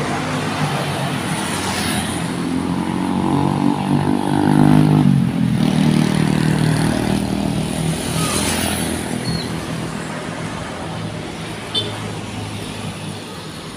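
Ship-style air horn on a bus sounding one long, steady, low blast for about five seconds, its lower note lingering and fading over the next few seconds, over road traffic noise.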